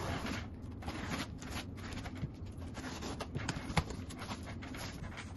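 Cardboard shipping box being opened: a box cutter slits the packing tape and the flaps are pulled back and handled, making a string of light scrapes and rustles with a sharper click about two-thirds through.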